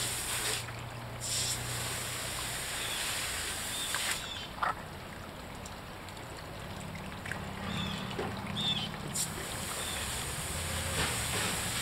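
Water trickling and running, with a low steady hum underneath and a few faint short chirps.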